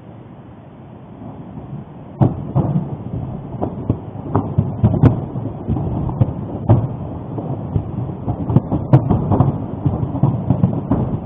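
Mount Etna erupting: irregular explosive booms and sharp cracks over a low rumble, starting suddenly about two seconds in and going on in uneven bursts.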